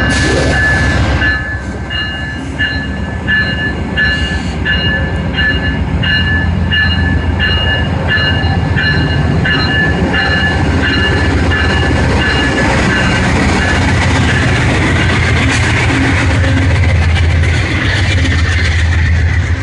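Amtrak GE P42DC Genesis diesel locomotive pulling out and passing close by, its bell ringing about three strikes every two seconds over the steady rumble of its engine. The bell stops about two-thirds of the way through, leaving the rumble and rush of the passenger coaches rolling past.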